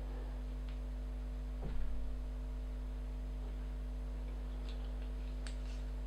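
Steady low electrical mains hum. Over it, one soft knock about two seconds in and faint small clicks near the end as the metal parts of a Smith & Wesson M&P tactical pen are handled and screwed back together.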